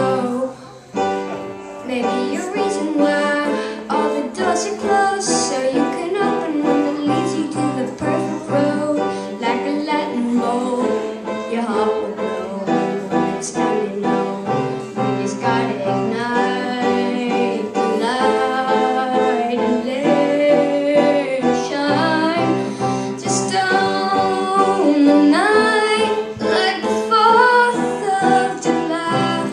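Pop song playing, with a female voice singing over piano and guitar accompaniment.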